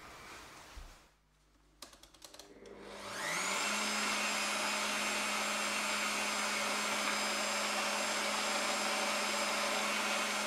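Electric meat grinder fitted with a sausage-stuffing nozzle switched on: a few clicks, then the motor spins up with a rising whine and runs steadily at a constant pitch. It is being fed meat but is still pushing only air out of the nozzle.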